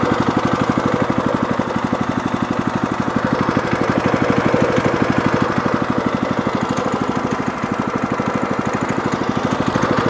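Woodland Mills portable band sawmill's small gasoline engine running steadily with an even beat, freshly started cold on full choke with the second pull of the recoil starter.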